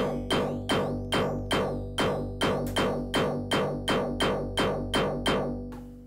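Waldorf Blofeld synthesizer playing a repeating, sharply plucked note pattern, about three notes a second, through its sample-and-hold effect, which adds gritty digital artifacts to the sound. Near the end the pattern stops and the last note dies away.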